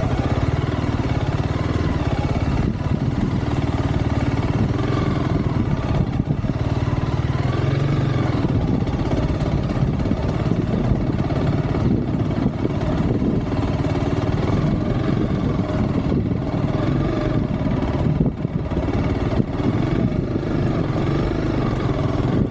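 Motorcycle engine running steadily while under way, its pitch wavering slightly.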